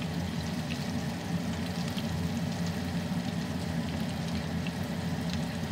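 Oil sizzling steadily around wontons frying in a pan, with scattered small pops and crackles, over a steady low hum.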